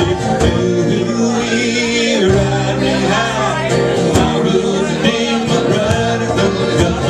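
Live acoustic band playing a country-folk song: acoustic guitars with a singer's voice over them.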